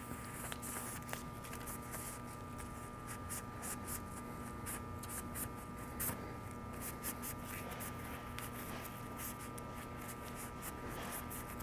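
Paper shop towel rubbing over a plastic air filter cage, a faint, irregular dry rustling and scuffing as the cage is wiped dry of contact cleaner, over a faint steady hum.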